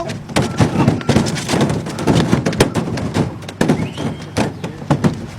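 Repeated irregular thumps and slaps of jumping fish striking the boat and the people aboard, over a steady background of boat and water noise.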